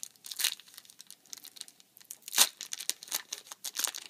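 Foil wrapper of a Yu-Gi-Oh booster pack being torn open and crinkled: a run of short, sharp crackles and rips, the loudest about two and a half seconds in.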